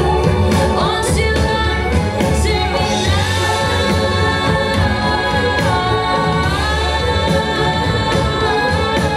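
Dance-routine soundtrack: pop music with long held, sung notes over a steady bass, the voice sliding up into a sustained note about three seconds in and again near seven seconds.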